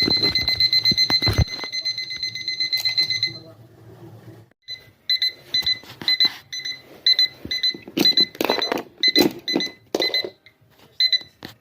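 Electronic alarm clock buzzer: one continuous high beep for about three seconds, then after a short pause a fast run of short beeps, two to three a second, stopping just before the end. Several loud short bursts of another sound come over the beeping about two-thirds of the way through.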